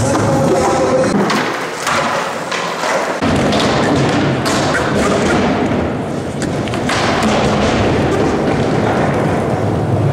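Skateboard rolling on a hard skatepark floor, with repeated thuds and clacks of the board hitting the ground.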